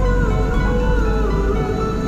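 Background music of held, slowly bending notes over a low steady rumble.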